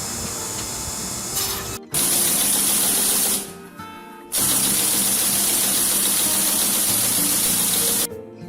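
Two long bursts of loud hissing spray over background music: the first about a second and a half long, the second about four seconds. Each starts and stops abruptly.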